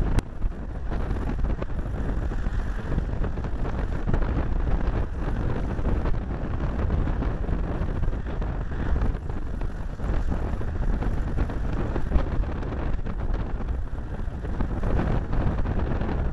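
Wind buffeting the microphone of a small camera taped to the bonnet of a moving VW Beetle: a steady, rumbling rush that flutters in loudness.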